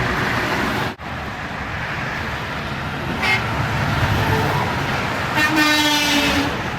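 Highway traffic rushing past, with a brief truck horn toot about three seconds in and a longer truck horn blast, about a second long, near the end.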